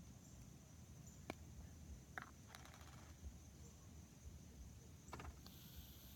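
Faint clicks and handling, then about half a second before the end a steady high hiss starts: an aerosol can of shaving cream being sprayed out.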